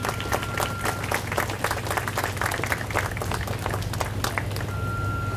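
Crowd applauding, the clapping thickest in the middle and thinning out near the end, over a steady low hum.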